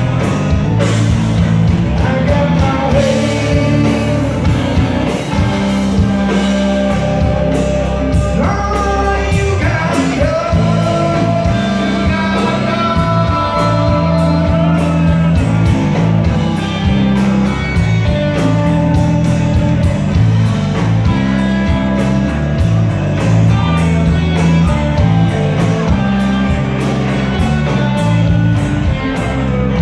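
Live rock band playing a song: electric guitars, bass guitar and drums, with singing over them. The sound is picked up from the crowd in a large hall.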